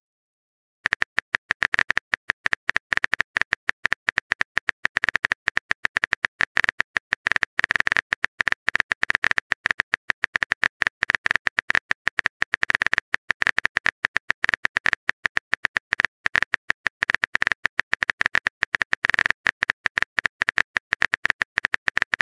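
Phone keyboard typing sound effect: a fast, irregular run of short clicks starting about a second in, while the next chat message is being typed.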